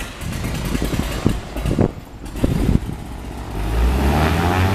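A light propeller plane's piston engine running, rising in pitch over the last second or so as it is revved up. Irregular low rumbles come before it.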